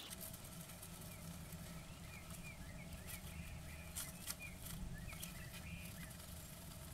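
Quiet nest box sound: a steady low electrical hum, a few soft clicks, and a run of faint, short, falling chirps between about two and six seconds in.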